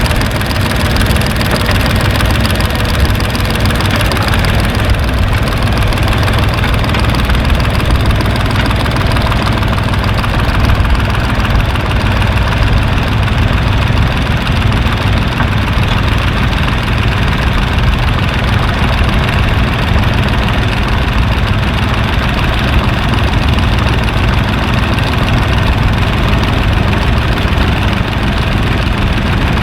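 An engine running steadily at idle, with a low, even throb throughout.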